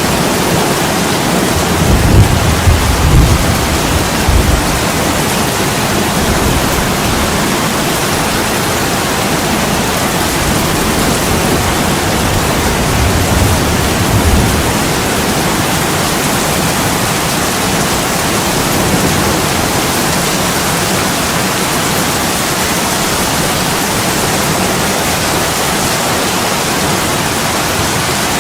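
Steady heavy rain pouring on an attic window, a dense even hiss. Low rumbles rise under it about two seconds in and again near the middle.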